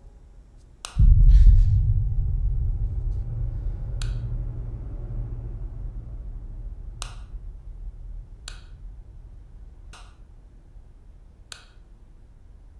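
Horror-film sound design: a deep low boom hits about a second in and slowly dies away, with about seven sharp, isolated clicks scattered through it, one to three seconds apart.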